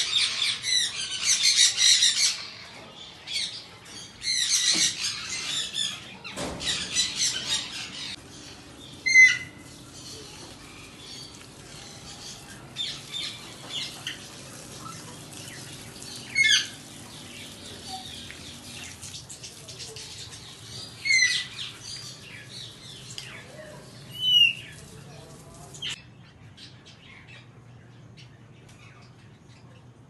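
Parrots in an aviary chattering and chirping in a dense crowd of calls for the first several seconds, then single sharp squawks every few seconds that thin out near the end.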